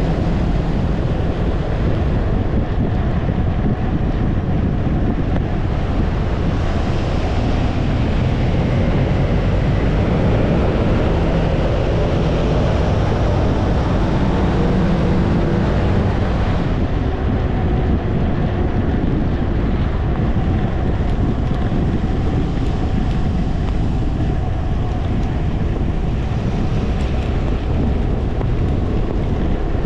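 Steady wind rush over a windscreen-mounted camera's microphone on a moving BMW C 400 X scooter, with the scooter's engine running underneath.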